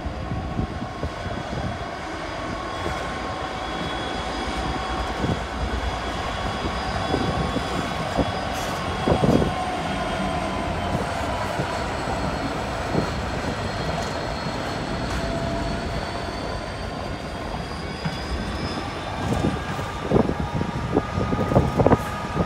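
Freightliner Class 66 diesel locomotive 66605, with its two-stroke V12 engine running, passes hauling a train of container wagons. Wheels roll steadily on the rails under a faint steady squeal. A run of sharp knocks comes near the end.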